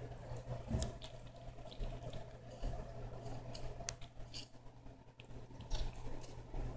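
Kitten chewing and tearing at a pot of wheatgrass at close range: irregular small crunching clicks, over a steady low hum.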